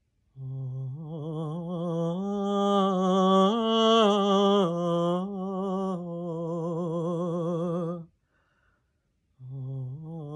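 A woman's unaccompanied wordless soul singing: long held notes with a wide vibrato that step up in pitch. The phrase breaks off about eight seconds in, and a new phrase begins about a second later.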